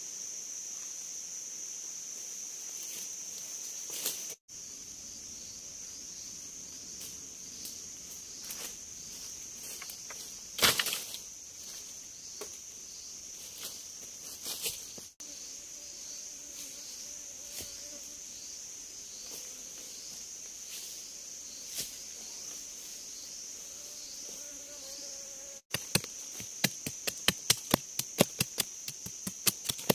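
Steady high buzzing of forest insects throughout, with occasional knocks. Near the end, a knife blade chops rapidly into a thin wooden stick, about three to four strikes a second.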